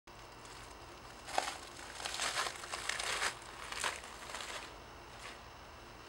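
Irregular rustling and crinkling noise in a handful of short bursts, starting about a second in and dying away before five seconds.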